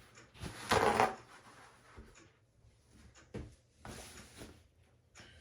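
Paper towel rustling as it is torn off and handled: a loud papery burst about a second in, another near four seconds, with a few light clicks between.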